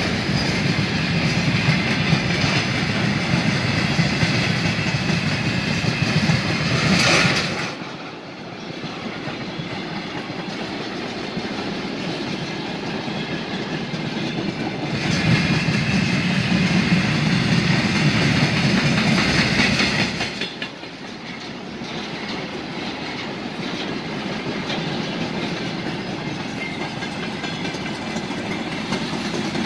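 Freight wagons, tank cars and then covered hoppers, rolling past close by: a continuous rumble with the clickety-clack of wheels over rail joints. It drops in loudness about eight seconds in, swells again around fifteen seconds, and drops again near twenty seconds.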